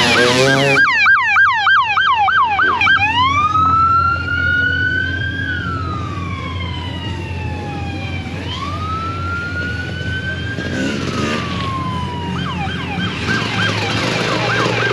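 American-style police car siren: a fast yelp, then two slow rising-and-falling wails, then the fast yelp again near the end.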